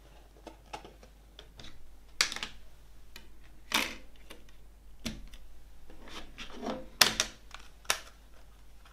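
Plastic CD jewel case and disc handled on a wooden table: a string of sharp plastic clicks and clatters as the disc is pressed onto the case's centre hub and the case is moved. The loudest clicks come about seven seconds in.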